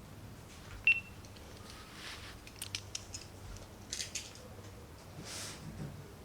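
A cardboard monitor box being opened by hand: a sharp click with a brief ring about a second in, then scattered light clicks and taps, and a short scraping swish of cardboard near the end.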